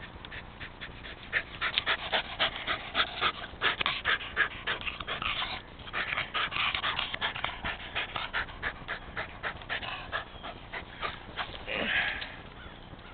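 Rat terrier panting rapidly and hard, close up, in quick even puffs. Near the end comes a short, louder falling sound.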